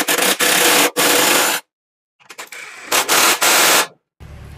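Cordless impact wrench hammering as it drives a bolt at a scooter engine mount through a long socket extension, in two rattling bursts of about a second and a half each, with a short pause between them.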